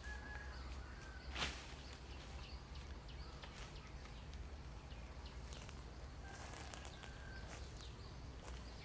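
Quiet outdoor ambience in a dry bamboo grove: a steady low rumble, faint bird chirps twice, small ticks and rustles, and one sharp snap about a second and a half in.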